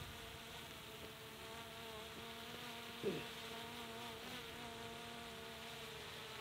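Quadcopter drone hovering overhead, its propellers giving a faint, steady buzz with several held tones. A brief falling sound comes about three seconds in.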